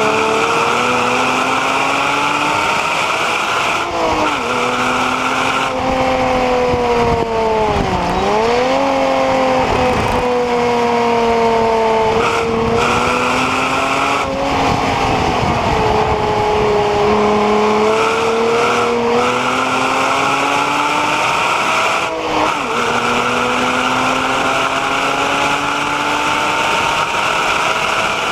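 Porsche Cayman 987's 2.9-litre flat-six engine at full load on track. Its pitch climbs and falls repeatedly, with short breaks at the gear changes every few seconds. About eight seconds in it drops sharply and climbs back.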